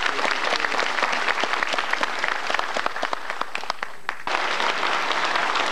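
Large audience applauding: the dense clatter of many hands clapping, dipping briefly about four seconds in.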